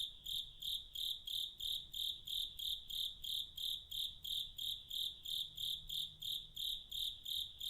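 A cricket chirping in an even, steady rhythm, about three high chirps a second.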